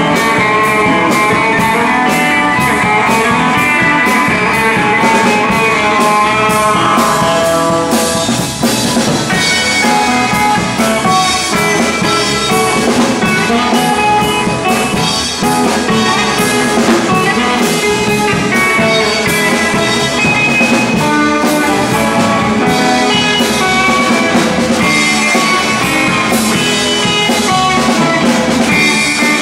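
Live rock band playing: an amplified electric guitar over a drum kit, with steady cymbal and drum beats.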